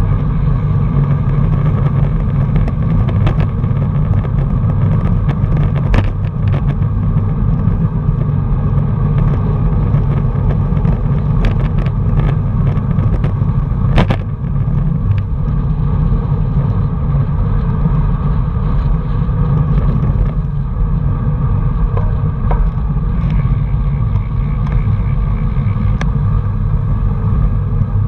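Wind rushing over the microphone of a camera riding on a moving road bike: a steady low rumble, with scattered clicks and knocks from the bike and road surface, the sharpest about fourteen seconds in.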